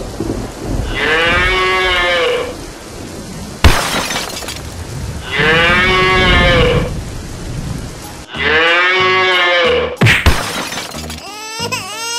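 A cow mooing three long times, each moo about a second and a half and falling in pitch at the end. Sharp cracks of thunder come between the first two moos and just after the third, over a hiss of rain.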